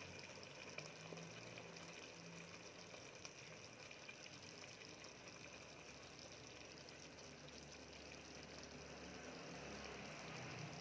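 Faint, steady simmering of a thick paneer and vegetable curry in a kadai over a lit gas flame.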